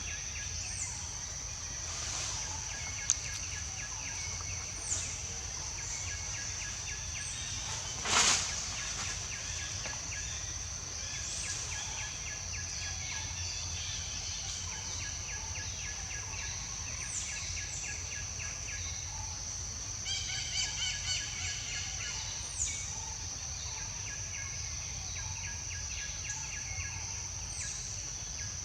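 Outdoor ambience: a steady high-pitched insect drone with scattered bird chirps and short falling calls. There is a brief loud noise about eight seconds in, and a quick run of bird calls around twenty seconds in.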